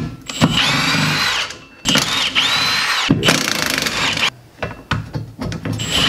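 Cordless impact wrench spinning up and hammering in bursts of about a second each, three in a row and another near the end, as it loosens the 10 mm bolts holding a 2011 Chevy Impala's rear wheel hub bearing assembly to the knuckle.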